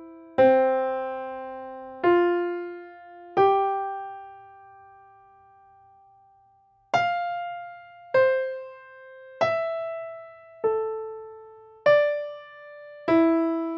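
Slow solo piano melody: notes struck one at a time about every second and a quarter, each left to ring and fade. Near the middle, one note is held for about three seconds before the melody resumes.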